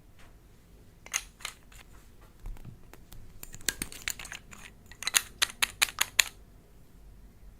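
Slime being pressed and worked by hand, making a series of sharp clicks and pops, with a quick run of about seven close together near the end.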